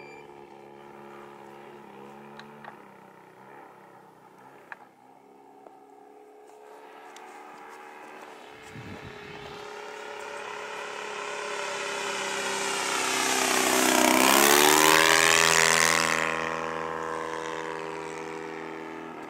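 Giant-scale radio-controlled Cessna 182's 85 cc four-stroke engine running steadily in flight. It grows louder as the plane approaches, passes close about three-quarters of the way through with a drop in pitch, then fades as it flies away.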